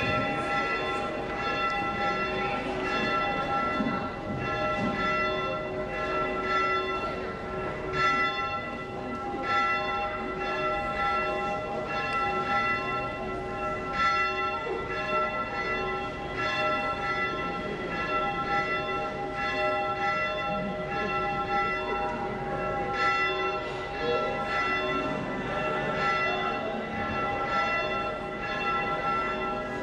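Church bells ringing on and on, struck roughly once a second so that each new stroke rings over the last.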